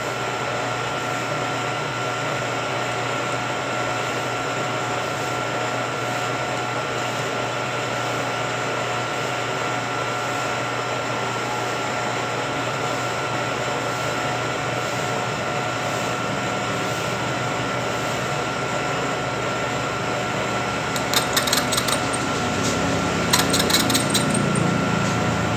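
Vertical milling machine running steadily with a constant whining tone as its end mill cuts a keyway into an impeller hub. Rapid metallic clicking comes in briefly near the end.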